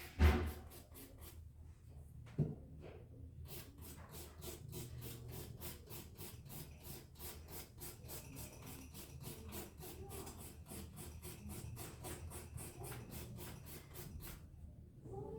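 Hand nail file rubbed quickly back and forth across a fingernail: a rapid, even scratching at about five strokes a second, with a couple of light knocks early on.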